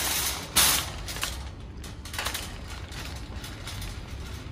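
Wire shopping cart being pushed along a store floor, its wheels and basket rattling and creaking, with one loud sharp clatter about half a second in.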